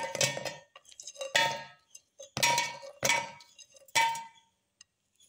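Oreo biscuits dropping one by one into an empty stainless steel mixer-grinder jar, each landing with a ringing metallic clang, about five in all.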